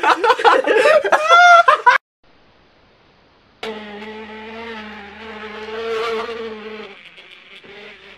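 A person laughing, cut off about two seconds in. After a short silence, a steady buzzing hum with a low, fixed pitch starts and runs on, quieter than the laughter.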